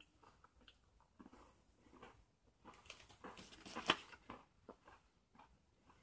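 Mouth-closed chewing of a crunchy wafer-and-chocolate candy bar: faint, irregular crunches, a louder cluster of crunches about four seconds in.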